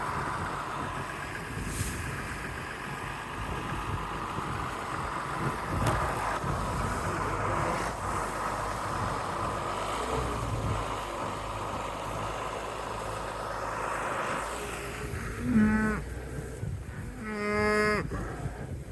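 Cow mooing twice near the end, a short moo then a longer one about a second and a half later, over steady wind noise.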